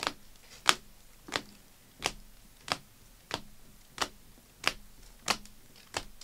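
Rigid plastic card holders clacking together as trading cards are flipped one at a time through a stack, a sharp click about every two-thirds of a second.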